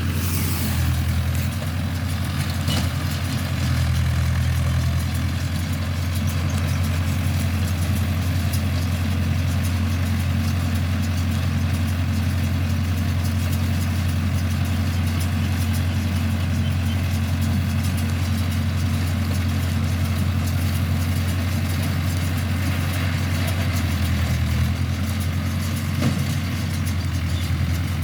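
Mahindra tractor's diesel engine running steadily with a deep, even hum, apart from one or two light clicks.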